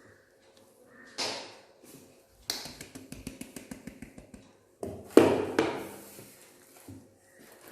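Utensil sounds at a mixing bowl while flour mix is added to cake batter: a soft scrape, then a fast run of light taps, then two loud knocks with a scrape against the bowl about five seconds in.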